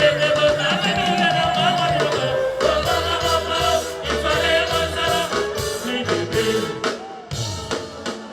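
Live Congolese soukous band music with a steady bass line and some singing. It breaks off briefly near the end.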